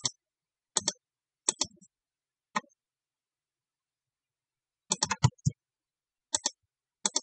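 Sharp clicks of a computer mouse and keyboard: short press-and-release pairs, about seven of them, with a quicker run of clicks about five seconds in.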